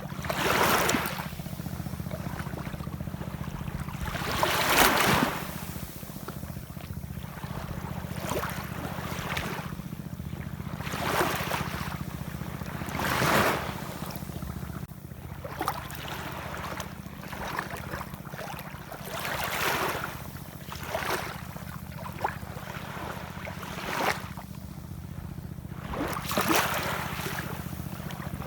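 Ocean waves washing in, swelling into a louder surge every few seconds over a steady low rumble.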